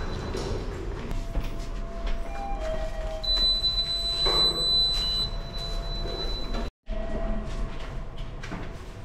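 Passenger lift (elevator) riding between floors: a steady low hum with a higher whine held for several seconds as the car travels, with the sound dropping out completely for a moment near the seven-second mark.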